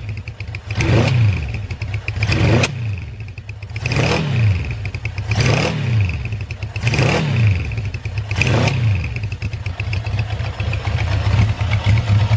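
Honda CB750 Four's air-cooled inline-four, on CR carburettors and its stock four-pipe mufflers, being blipped: about six quick revs that rise and fall roughly every second and a half, then settling to a steady run for the last few seconds.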